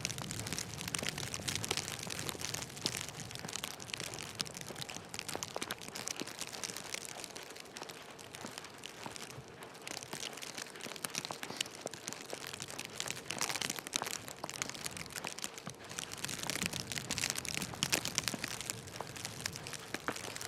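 Snow crunching and crackling in a steady, dense, irregular texture with no clear rhythm.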